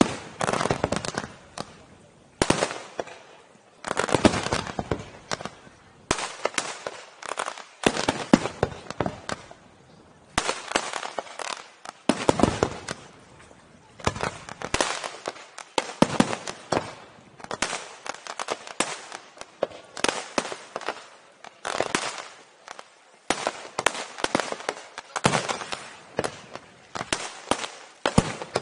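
Aerial firework shells bursting in a continuous barrage: sharp bangs coming in volleys every second or two, several in quick succession, with crackling between them.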